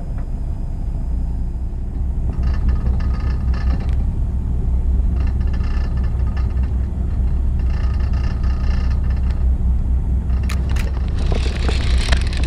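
Steady low rumble aboard a small fishing boat at sea. It carries three fainter, higher-pitched passages of a second or so each in the middle, and a few sharp clicks followed by a brief burst of hiss near the end.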